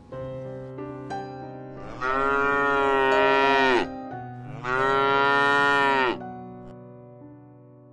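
Cow mooing twice: two long calls of about one and a half to two seconds each, a little under a second apart, each dropping in pitch as it ends.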